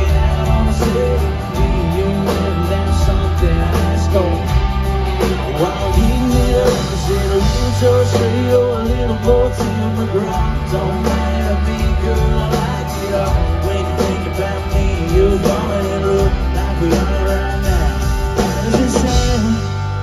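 Live country-rock band playing, with electric guitar and drums over held bass notes and a singing voice carrying the melody.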